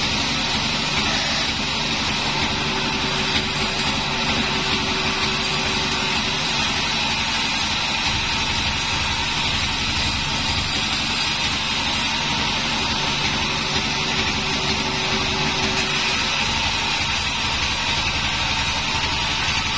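Band sawmill running steadily while its blade rips lengthwise through a long wooden board.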